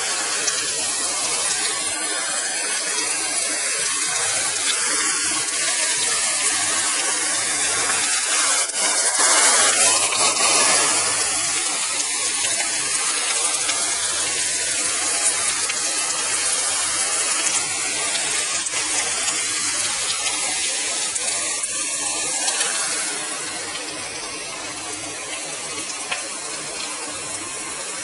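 Chicken and beef burger patties sizzling on a flaming grill grate: a steady hiss with scattered small crackles and pops. It gets louder for a couple of seconds about a third of the way in and drops to a softer sizzle in the last few seconds.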